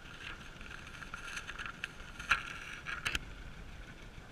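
Water lapping against the hull of a small boat, with a few sharp clicks and knocks from handling a freshly caught fish. The loudest click comes about two seconds in, and two more follow close together about a second later.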